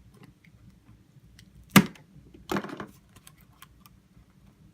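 Small clicks and taps of smartphone parts and tools being handled during disassembly. One sharp click comes a little under two seconds in, and a longer clatter follows soon after.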